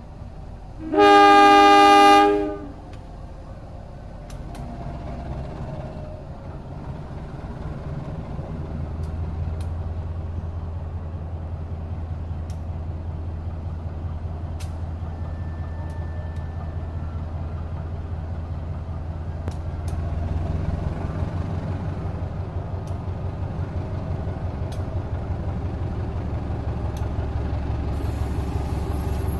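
Diesel-electric locomotive of the KAI CC201 type sounds one loud horn blast about a second in, signalling its departure. Its engine then rumbles steadily and grows louder as it pulls the passenger train away and draws near.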